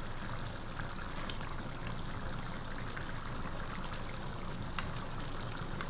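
Chicken pieces simmering in a thin, watery tomato-and-yogurt gravy in a wok-shaped pan on medium-to-high heat: a steady bubbling hiss with small scattered pops, stirred with a wooden spatula. The gravy is still full of the water let out by the yogurt, tomatoes and chicken, not yet cooked down.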